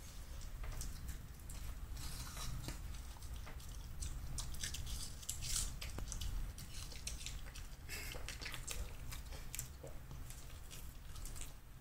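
A small dog biting and chewing a piece of apple: irregular crunchy bites, bunched in clusters every few seconds.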